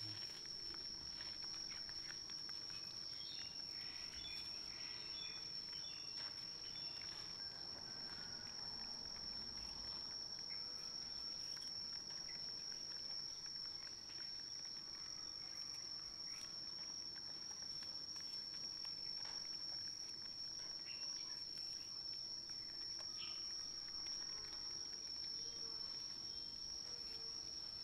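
A steady high-pitched insect trill, like crickets, with faint scattered clicks and small squeaks over it.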